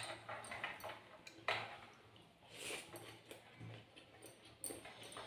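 Eating sounds: scattered soft clicks and taps of a plate and utensils, with a few short bursts of chewing noise.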